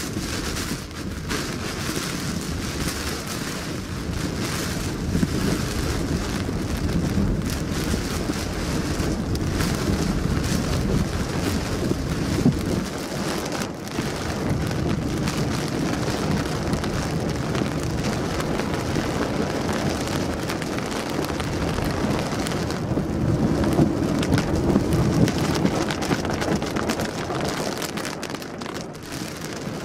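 Heavy rain pelting a car's windscreen and roof, heard from inside the moving car: a dense, steady drumming made of many small hits.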